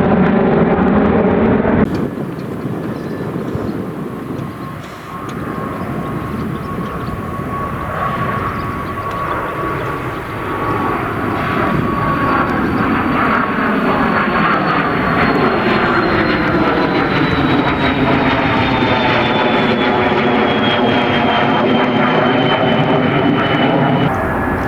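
Jet airliner engines passing close by, with a high engine whine that slowly falls in pitch as the aircraft goes past; the noise grows louder about halfway through. A different aircraft recording fills the first two seconds, before a cut.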